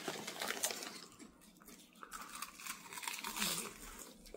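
Crinkling of a potato-chip bag and the crunching and chewing of crisp potato chips: a dense flurry of crackles in the first second, then fainter, scattered crackles.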